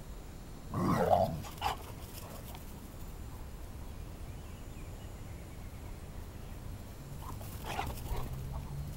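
Dogs at rough play: one loud, short dog vocal outburst about a second in, a shorter one right after, and fainter dog sounds near the end.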